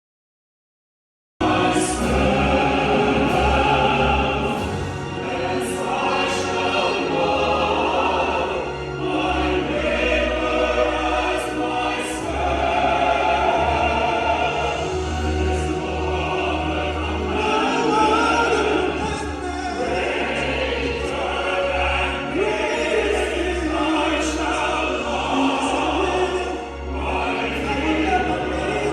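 Three singers in full, rich, opera-like voices singing a sacred chorus together with instrumental accompaniment. It starts after about a second and a half of silence.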